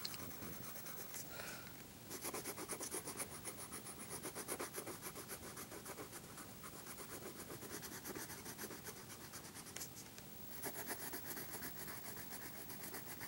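Coloured pencil scratching on paper in quick back-and-forth strokes, shading in a large area, with short pauses about two seconds in and about ten seconds in.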